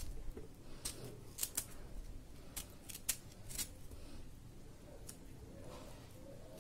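Kitchen knife cutting segments off boiled amla (Indian gooseberries) held in the hand: a run of faint, sharp clicks and snips at irregular intervals. The fruit is lightly boiled, so it cuts easily.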